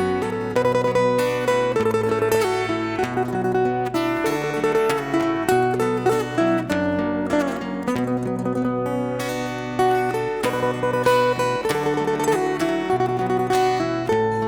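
Acoustic guitar playing an instrumental passage, plucked and strummed notes over a steady bass line, with no singing.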